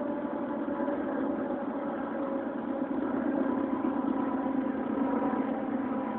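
Steady, loud droning hum of unknown origin heard in the night sky, made of several held tones that waver slightly without a break.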